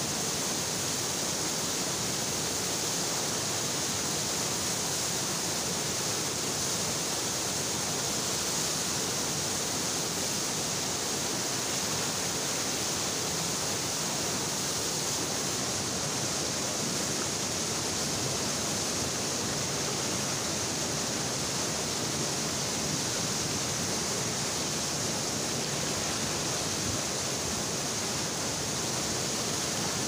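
Fast mountain river rushing through whitewater rapids over rocks: a steady, unbroken hissing rush of churning water.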